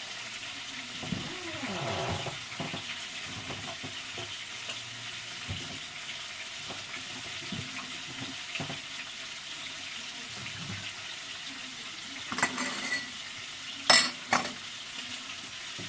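Pig's feet sizzling in a pot. A metal utensil clinks against the pot several times near the end, the loudest about two seconds from the end.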